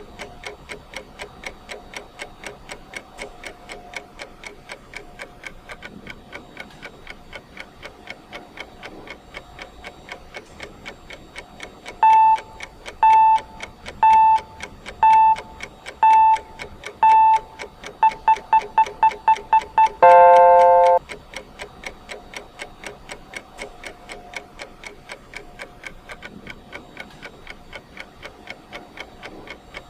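Countdown timer's clock ticking steadily. About twelve seconds in, a beep sounds once a second six times, then speeds into a quick run of beeps and ends in a one-second beep of several tones, after which the ticking carries on.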